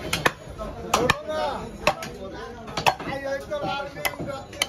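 Butcher's cleaver chopping into a beef leg on a wooden block: sharp chops, about one a second. Voices chatter in the background.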